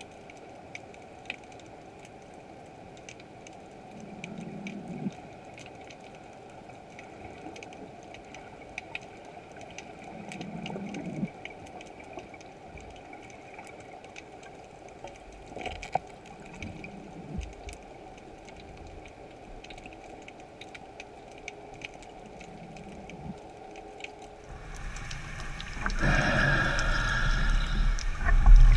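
Underwater ambience recorded through a camera housing on the seabed: a faint steady hiss with many scattered small clicks and a few brief low swells. About 25 s in it gives way to louder rushing water noise from a camera moving through the water.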